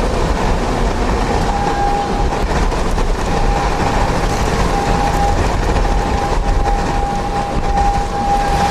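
Hurricane-force wind making a loud, steady rushing noise, with a thin high whistle that comes and goes from about a second and a half in.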